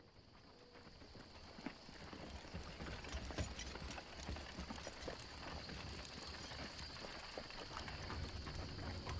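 Horse hooves clopping on soft ground, growing louder as the horse comes closer, over a low rumble and a steady high-pitched hum.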